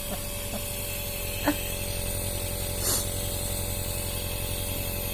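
Nebulizer compressor running: a steady motor hum with a fast, even pulse and a hiss of medicated mist, used to loosen phlegm from a child's cough. A short hissing rush comes about three seconds in.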